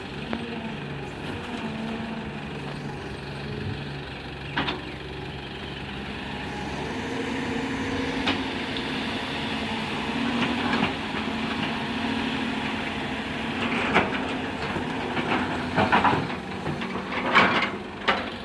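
Heavy diesel machinery running steadily, its engine note rising about seven seconds in as it comes under load, with several sharp clanks and knocks, the loudest near the end.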